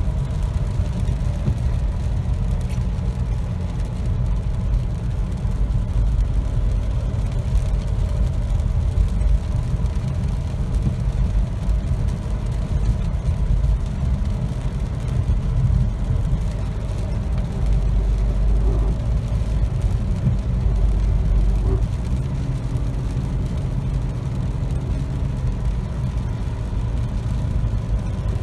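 2008 Toyota RAV4 (2.4 L four-cylinder, 4WD, four-speed automatic) driving at cruising speed: a steady low drone of engine and road noise with a faint thin steady tone over it. This is the grinding noise at cruising speed that the owner has had for a couple of months, cause unknown.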